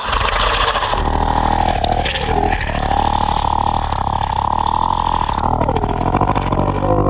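Monster roar sound effect: one long, rough, growling roar over a deep rumble. It sets in suddenly out of silence, and its held pitch wavers and dips twice.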